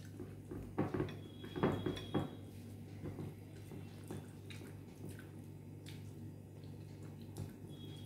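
Eating by hand: fingers squishing and mixing rice with curry on a plate, with chewing, loudest in a cluster of wet smacks and clicks about one to two seconds in.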